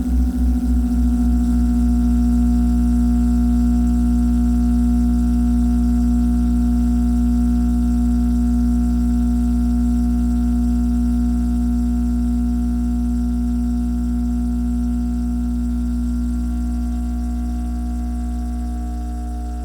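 Refrigerator hum electronically processed into a dense, loud low drone of many steady layered tones. A throbbing pulse at the start smooths out within about two seconds, and the drone fades slightly near the end.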